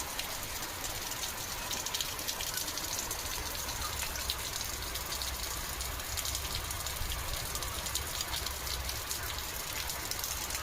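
Steady heavy rainfall: a dense patter of drops with a low rumble underneath.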